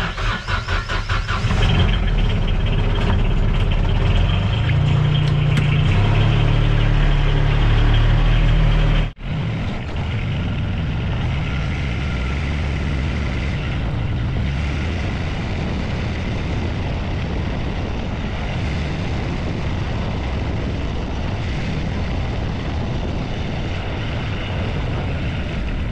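Ranger side-by-side utility vehicle's engine starting with a short run of fast pulses, then running steadily as the vehicle drives; the sound drops out briefly about nine seconds in.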